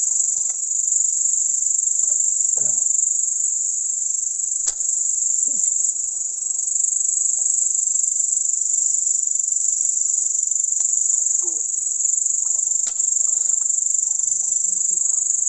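A steady, high-pitched chorus of night insects, unbroken throughout, with a few faint short knocks below it.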